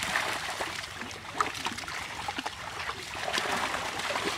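Shallow pond water splashing and trickling as a large fishing net is gathered and lifted by men wading in it, with many small irregular splashes from fish thrashing in the net.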